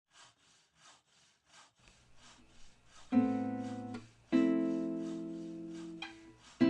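Background music: soft, evenly spaced percussion taps, then acoustic guitar chords strummed about three and four seconds in, each left to ring and fade.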